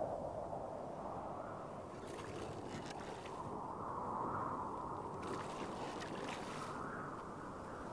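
Wind-and-water ambience: a steady rushing that swells and eases, with two spells of fainter higher hissing, like water splashing or spraying, about two and five seconds in.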